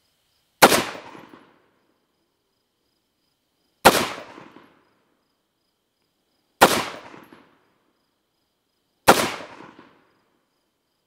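Four single shots from an AR-style rifle, fired slowly and evenly about three seconds apart, each cracking sharply and trailing off in a short echo. This is deliberate aimed fire of a group to check the red dot sight's zero.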